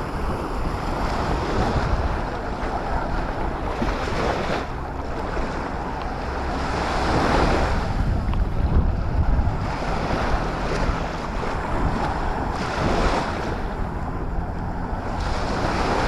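Black Sea waves breaking and washing up the beach, swelling louder every few seconds, with wind rumbling on the microphone.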